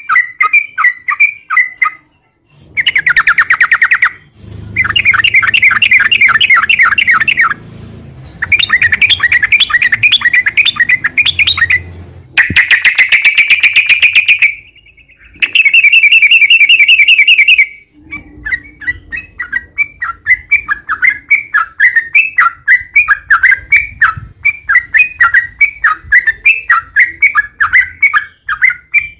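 Yellow-vented bulbul (trucukan) singing its long rolling 'ropel' song: several long runs of very rapid notes with short breaks between them, then a fast string of separate chirps near the end.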